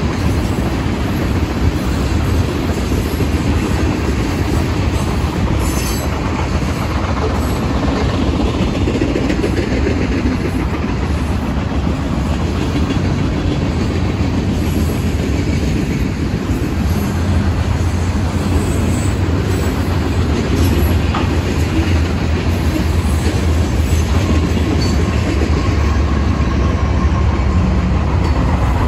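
Freight cars of a Norfolk Southern mixed freight train (tank cars, boxcars and covered hoppers) rolling steadily past, the sound of steel wheels on the rails.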